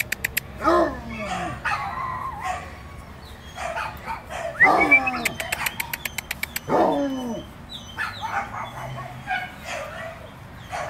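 Dogs barking and yelping in rough play, with three longer calls, about a second in, near the middle and about two-thirds through, that slide down in pitch.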